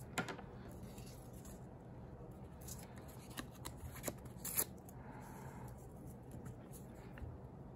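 Faint rustling and crinkling of small torn paper pieces being handled and pressed down onto a sheet of paper, with a few short sharp ticks.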